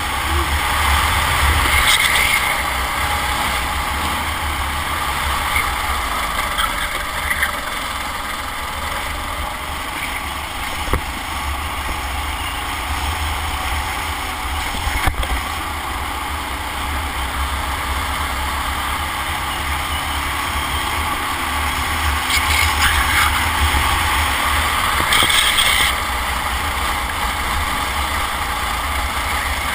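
Onboard sound of a racing kart at speed: its engine running under load through the corners, with wind rushing over the microphone. It gets louder briefly about two seconds in and again for a few seconds toward the end.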